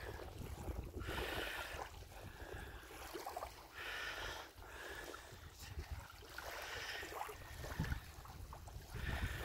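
Small wavelets lapping and washing over a pebbly shore, a soft wash every two or three seconds. Wind rumbles on the microphone underneath.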